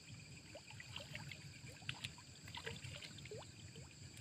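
Faint water dripping and trickling, with small drops and splashes making short rising plinks now and then.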